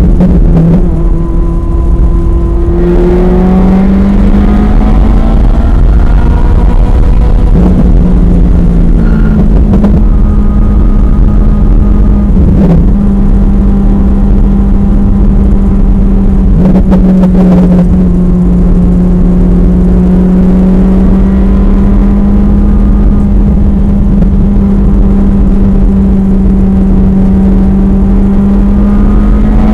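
Ferrari F355 Challenge's 3.5-litre V8 running hard on track, heard from inside the cabin. The engine note holds a nearly level pitch through the corners, with a few short steps and breaks in the first half and a rise in pitch near the end as the car accelerates.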